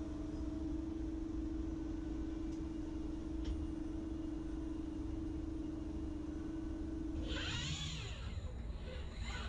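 Machine hum with a steady tone from the Okuma ARMROID robot arm and lathe. About seven seconds in, the tone drops out and servo motor whines rise and fall in pitch as the arm swings the gripper away from the chuck. A shorter whine follows near the end.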